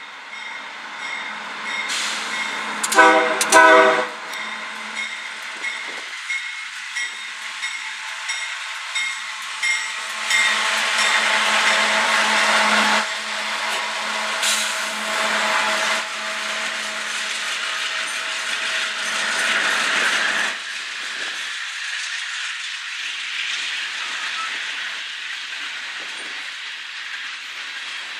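Diesel locomotive horn sounding two short blasts about three seconds in, as a Union Pacific coal train's GE diesel locomotives pass close by with engines working and steel wheels rolling over the rails. A bell rings in a steady beat through the first ten seconds or so.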